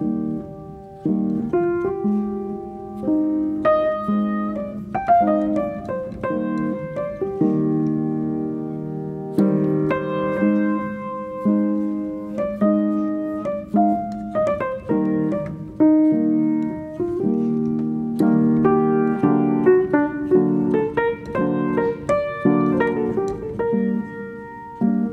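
Background piano music: chords and single notes struck about once a second and left to ring.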